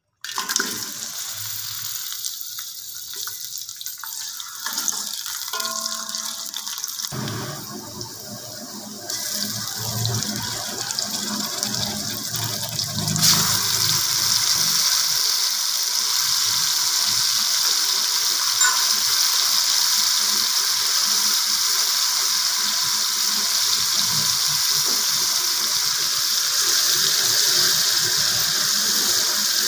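Sliced onions sizzling as they fry in hot oil in a pot; the sizzle turns louder about thirteen seconds in and then holds steady.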